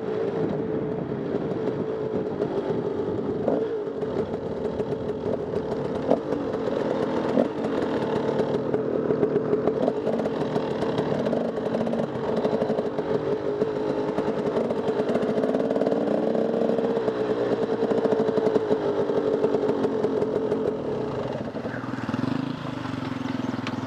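Dirt bike engine running steadily under way on a trail, with scattered clattering knocks. About three seconds before the end the engine note drops to a lower pitch as the bike slows.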